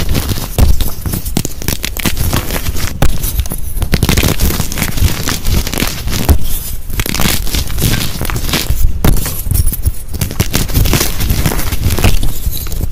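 Dyed gym chalk blocks and loose chalk pieces crushed and crumbled by hand: continuous crisp crunching and crackling as the chalk breaks apart.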